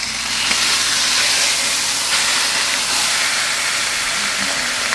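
Spatchcocked whole chicken sizzling steadily in a hot skillet, a constant hiss of fat frying as the skin sears to colour.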